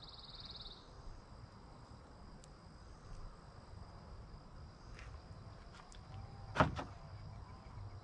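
Insects trilling, a louder pulsed trill in the first second, then a steady high trill. A few light clicks over it, the loudest a sharp double click about six and a half seconds in.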